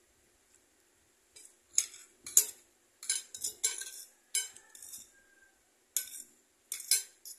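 Metal spoon and fork scraping and clinking against a plate while food is cut and scooped: a run of sharp clicks and scrapes starting about a second and a half in.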